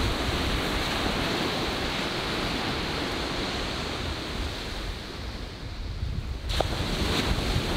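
Ocean surf washing onto a sandy beach, a steady rush of waves that eases about five seconds in and builds again near the end.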